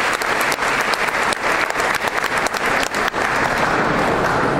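Audience applauding, the clapping thinning out about three seconds in.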